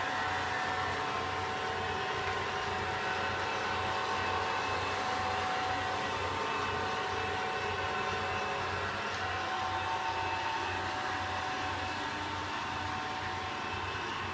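Robot vacuum cleaner running: a steady motor whir with a constant whine.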